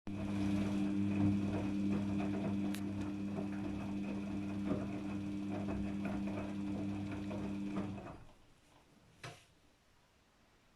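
Daewoo DWD-FT1013 washing machine running with a steady hum and light rattling, which winds down and stops about eight seconds in; a single click follows a second later.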